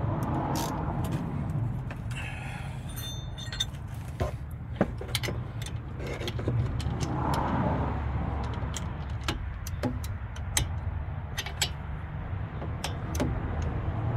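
Irregular metallic clicks and clinks of hand tools as a socket and wrench are handled and fitted onto a brake caliper bolt, with a brief metallic ring about two seconds in, over a steady low rumble.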